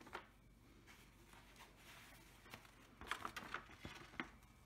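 Cover paper being peeled back from a diamond-painting canvas: faint paper rustling, with a quick run of crackles about three seconds in and one more sharp crackle near the end.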